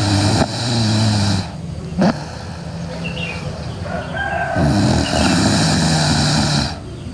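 A sleeping girl snoring loudly: one snore lasting about a second and a half at the start, then a longer one of about two seconds from four and a half seconds in, with quieter breathing between.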